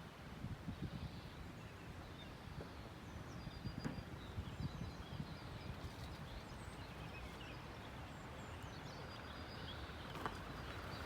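Small birds chirping faintly now and then over a steady outdoor background rush.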